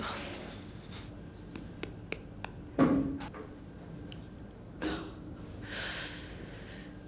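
A woman breathing quietly, with a few small mouth clicks and two short nasal sounds, about three and five seconds in.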